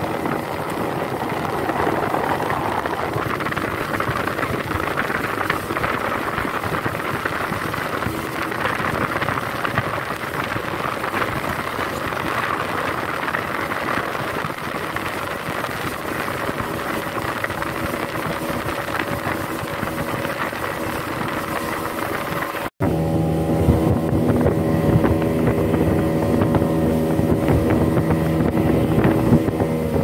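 A 75-horsepower speedboat engine running steadily at cruising speed, mixed with the rush of the wake and wind on the microphone. After a brief dropout about three-quarters of the way through, the engine's steady drone comes through more clearly.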